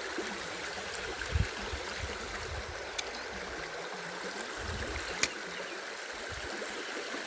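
Small trout stream running with a steady rush of water. Two sharp clicks sound near the middle and later on, and a few low bumps come in between.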